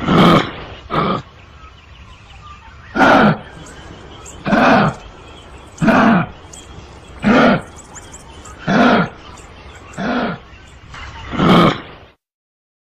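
Kangaroo calling: a series of nine short calls, one about every second and a half. The sound cuts off abruptly near the end.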